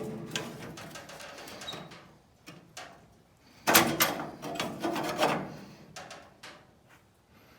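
Sheet-metal panel being worked by hand: irregular knocks and clatter of metal, loudest in a dense run a little past halfway.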